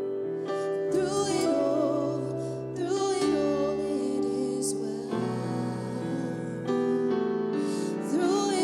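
Slow, gentle song: piano chords with a singing voice holding long, wavering notes.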